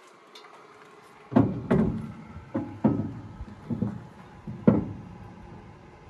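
A run of about eight irregular knocks on metal, some of them sharp bangs with a short ring, starting about a second and a half in and dying out near the end. They come from hands-on repair work on the combine, where a snapped idler bracket is being fixed.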